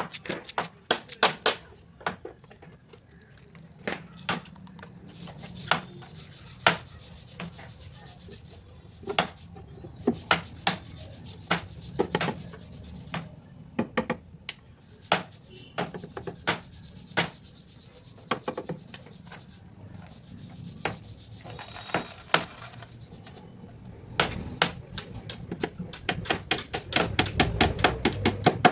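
Hand-tool work on teak wood: irregular sharp knocks and taps, sometimes singly and sometimes in quick clusters, with a faster run of strikes near the end.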